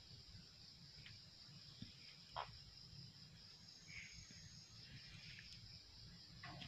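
Faint night insect chorus, a steady high-pitched trill, with a single short click about two and a half seconds in.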